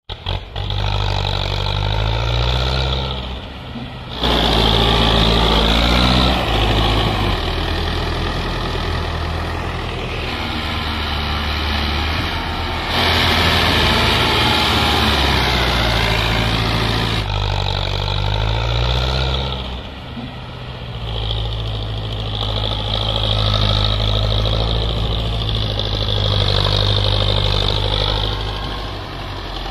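Diesel tractor engines working hard while pulling heavily loaded sugarcane trolleys, the load heavy enough to lift one tractor's front wheels off the ground. The engine note rises and falls with the throttle, changing abruptly a few times as one tractor gives way to another.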